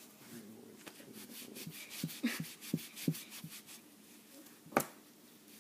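A baby wipe rubbing and rustling against the skin of the forearm as it is wiped clean, with a few soft taps along the way. Near the end comes one sharp click, the loudest sound.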